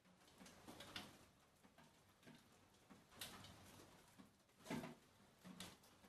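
Near silence, with a few faint, scattered clicks.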